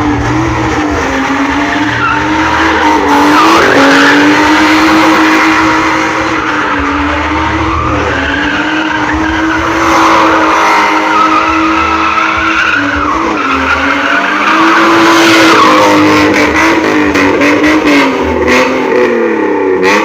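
A drift car's engine held at high revs with its pitch wavering, over tyres skidding and squealing. The revs dip briefly about three and a half seconds in and again near the end.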